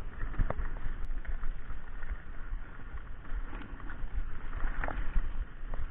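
Mountain bike riding fast down a dirt trail: tyres rolling over dirt and stones, with frequent sharp knocks and rattles as the bike hits bumps. Wind buffets the camera microphone with a low rumble.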